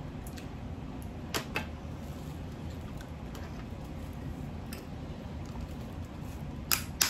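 Hard Jonah crab claw shells cracking as they are bitten and pried apart by hand: a few short sharp cracks, a pair about a second and a half in and a louder pair near the end, over a steady low hum.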